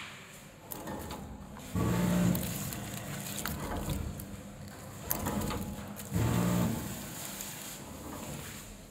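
Automatic pouch packing machine working through its fill-and-seal cycle. Twice, about four seconds apart, a hum switches on abruptly for about half a second, with lighter mechanical clicks and knocks in between.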